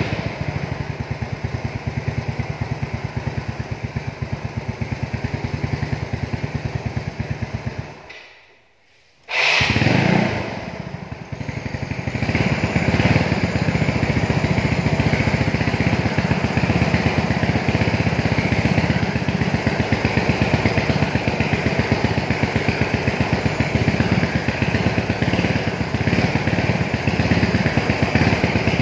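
Motor scooter engine started and running, then dying away and stopping about eight seconds in. It starts again with a sharp burst about a second and a half later and settles into a steady, somewhat louder idle from about twelve seconds on.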